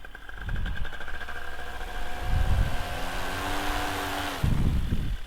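Paramotor engine and propeller running steadily, the pitch rising slightly partway through, with low rumbles of wind on the microphone.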